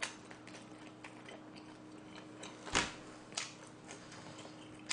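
Close-up chewing of an overfull mouthful of food, with faint wet mouth clicks and a louder smack a little under three seconds in, over a low steady hum.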